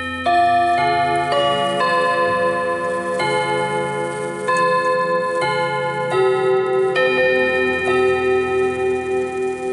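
Chime rods of a French MF wall clock struck one after another by the movement's hammers, playing a chime melody note by note. Each note rings on and overlaps the next.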